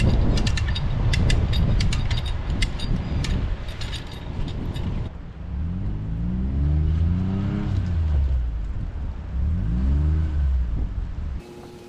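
Gator utility vehicle's engine revving up and dropping back twice as it tries to drive out of mud with a trailer behind it. Before that, a few seconds of engine rumble with rapid clattering clicks.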